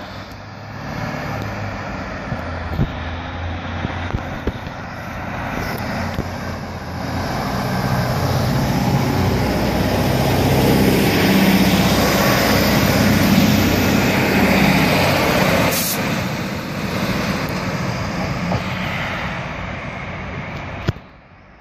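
Class 156 Super Sprinter diesel multiple unit passing close by: the drone of its underfloor diesel engines and wheel-on-rail noise build to a peak about halfway through, then ease as it pulls away. The sound cuts off abruptly near the end.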